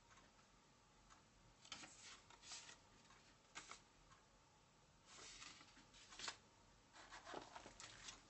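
Very faint rustling and crinkling of paper and a clear plastic sleeve being handled, in several short bursts with near silence between.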